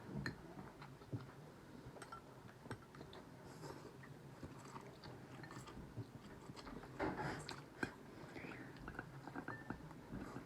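Close-up chewing and biting mouth sounds of people eating, with many small scattered clicks and a louder noisy patch about seven seconds in.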